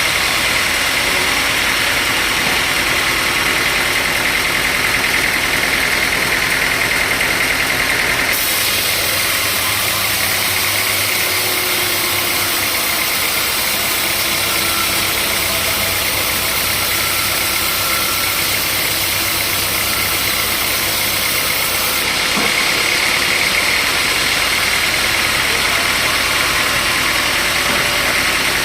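Sawmill machinery running steadily and loudly, its sound changing abruptly about eight seconds in and changing back about twenty-two seconds in.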